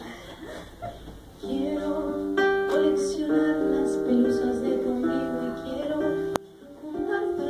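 Acoustic guitar chords played live and left to ring, starting about a second and a half in after a quieter stretch. A sharp click about six seconds in cuts the sound off briefly before the playing resumes.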